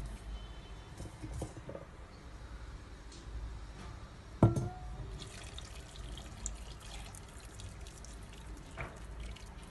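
Tomato sauce poured from a bowl onto cooked penne in a clay pot, a soft wet trickle. About halfway in there is a single sharp knock with a brief ring, the loudest sound.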